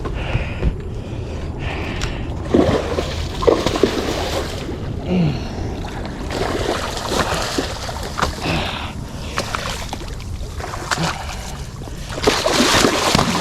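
Water splashing and sloshing irregularly as a hooked alligator gar thrashes at the water's edge, loudest near the end.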